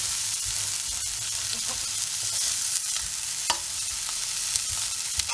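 Sweet corn and capsicum frying with flour in a non-stick pan: a steady sizzle while a wooden spatula stirs and scrapes through them, with a few sharp taps of the spatula on the pan. The flour is being sautéed to cook it through.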